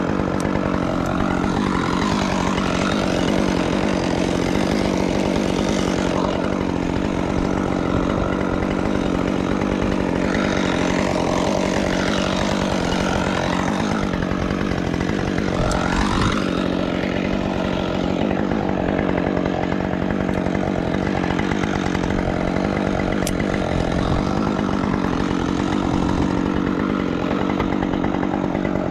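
Two-stroke chainsaw running steadily at high speed, with no break in the engine note.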